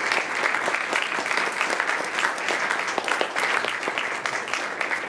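Audience applauding steadily in a lecture hall after a talk ends.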